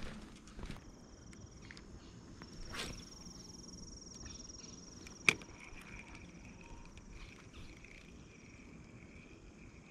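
A spinning rod and reel being cast: a quick swish of the cast about three seconds in, then a sharp click, then the faint steady whir of the reel winding line in. A thin steady high tone runs underneath.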